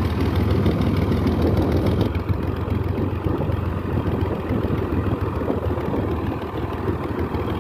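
Tractor's diesel engine running steadily as the tractor drives along, a low drone with a fast clattering beat, heard from up on the tractor.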